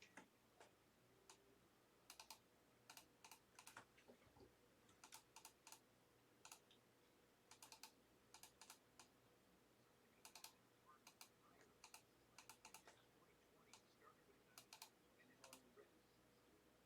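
Faint typing on a computer keyboard: short runs of quick key clicks separated by brief pauses.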